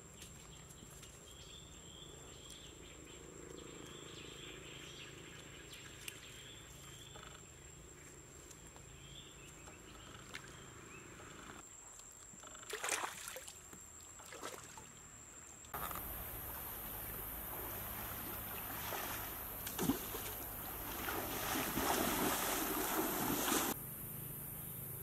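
Water splashing and sloshing as a person moves in a shallow creek, against outdoor insect and bird sounds: a steady high insect whine with short chirps in the first half, a few splashes about halfway, and louder, irregular sloshing over a shrill insect drone in the last third.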